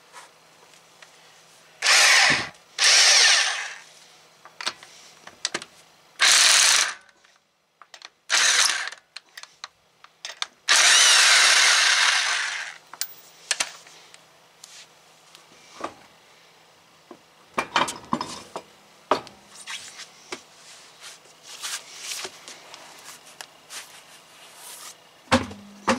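Corded electric impact wrench hammering on a lug nut in about five bursts of one to two seconds, the longest about eleven seconds in, working the last lug nut loose. Scattered clicks and knocks follow in the second half.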